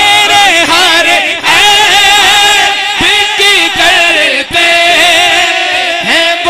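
A male naat reciter sings without instruments, drawing out long, ornamented notes that waver in pitch, amplified through a microphone.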